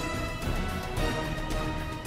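Background music with held notes over a regular beat.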